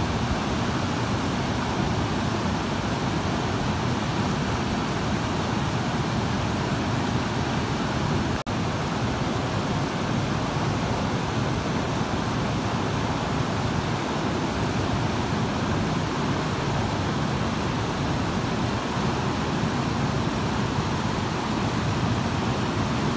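Mountain river rapids rushing steadily over boulders, with a momentary break about eight and a half seconds in.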